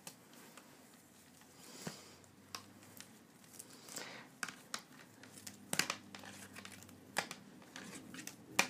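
Loose bundle of 3D printer wiring being handled by hand: the cables rustle and crinkle, with scattered light clicks and taps, the sharpest near the end.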